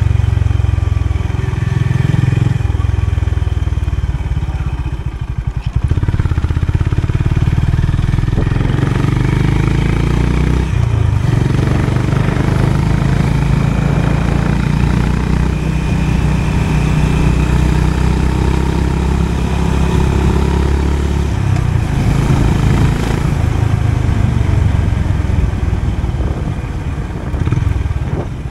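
Honda CB 350 RS single-cylinder engine running under way, its note shifting a few times as the speed changes.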